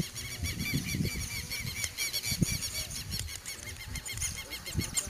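Rapid, evenly repeated high chirping from wildlife, several chirps a second, over irregular low rumbling gusts of wind on the microphone.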